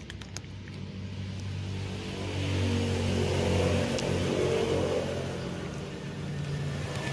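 A motor vehicle's engine running nearby, swelling louder a couple of seconds in and easing off again, like a car passing. There are a few faint clicks near the start.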